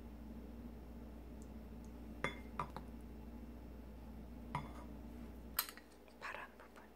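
A few light clinks of a bottle and spoons touching a glass mixing bowl as sauce ingredients are added, with a short scrape of a metal spoon moving chopped green onion near the end. A faint steady hum runs underneath.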